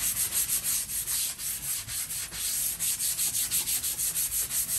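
Sandpaper rubbed by hand over a painted and stained wooden board in quick back-and-forth rasping strokes, several a second. This is distressing the stain to bring the textured wood back through.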